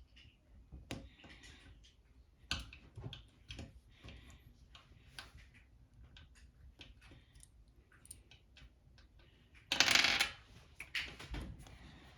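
Small plastic kit parts clicking and tapping as they are handled and fitted together by hand. About ten seconds in there is a louder rattling rustle lasting about a second.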